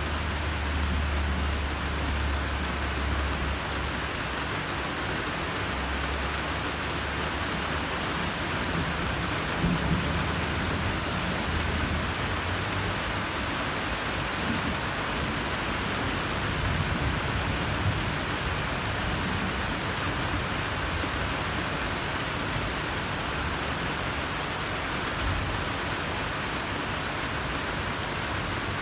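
Steady rain falling, with low rumbles of thunder at the start and again about ten and seventeen seconds in.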